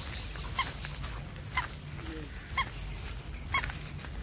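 A bird repeating a short, pitched call about once a second, four times in a row.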